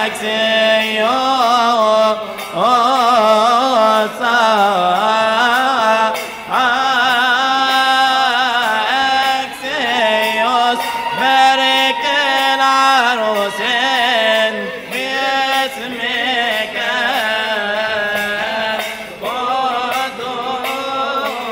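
Coptic liturgical chant: a single voice sings a long, ornamented hymn melody with wavering, melismatic runs and brief breaths between phrases. Light strikes keep a steady beat behind it.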